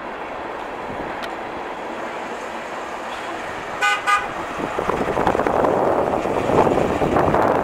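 1996 Ford Bronco with its 5.8-litre V8 driving past, its engine and tyre noise growing louder as it nears. Its horn gives two short toots about four seconds in.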